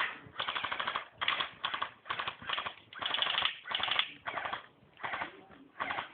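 Airsoft guns firing in short, rapid bursts of fast, evenly spaced clicks, with brief pauses between the bursts.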